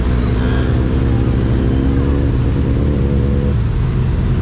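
Motor vehicle engine running with a steady low drone, its pitch shifting slightly now and then.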